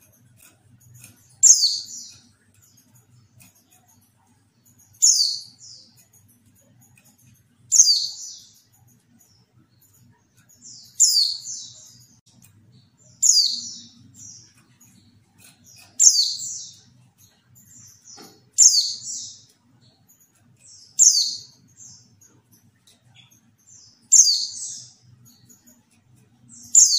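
Female white-eye (pleci) calling: short, high, falling chirps, one every two to three seconds, about ten in all. It is the call bird keepers play to provoke male white-eyes into answering and singing.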